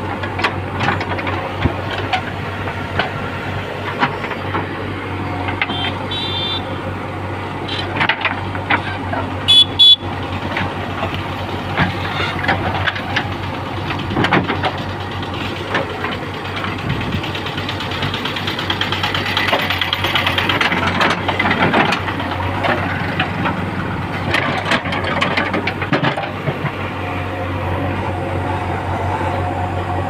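JCB 3DX backhoe loader's diesel engine running steadily under load as the backhoe bucket digs around and grips a tree stump, with scraping and knocking of the bucket in soil and stones. Two brief high-pitched tones come at about six and ten seconds in.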